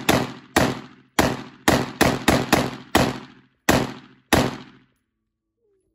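AR pistol chambered in 5.56 firing rapid semi-automatic shots, about ten sharp cracks in uneven succession, each with a short echoing tail, the last about four and a half seconds in as the magazine is emptied.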